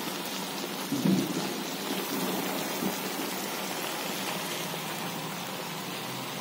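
Marinated raw chicken pieces sizzling and crackling in hot oil in a metal kadai. The sizzle swells briefly about a second in, then settles to a steady hiss.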